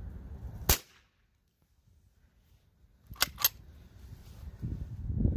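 .22 LR CCI #12 shotshell fired from a Ruger 10/22 rifle: one sharp report under a second in. After a short near-silence come two more sharp cracks close together about three seconds in, then a low rustling noise builds near the end.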